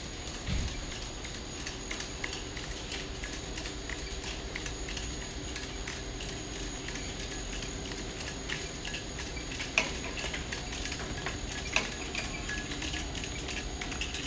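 Pomegranate grading line running with a steady hum and an irregular patter of small clicks. Twice in the second half, about two seconds apart, a pomegranate drops onto the padded outlet tray with a sharper knock: fruit the sensor has flagged as blackheart going to the blackheart drop.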